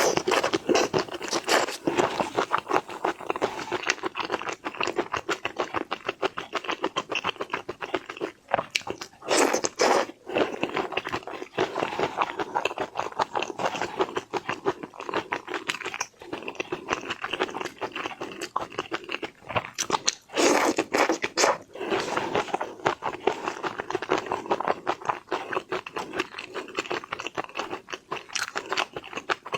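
Close-miked eating of shrimp: rapid, continuous crunching and wet chewing of shell and meat, with brief pauses between mouthfuls.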